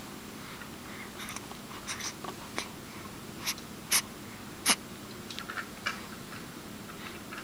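A run of small, quick sneezes, about five short sharp ones between two and six seconds in, the loudest two near four and five seconds.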